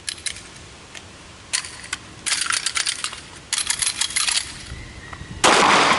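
Handgun slides being racked and magazines worked while clearing a double-feed malfunction: several quick runs of sharp metallic clicks and clacks. One loud bang comes near the end.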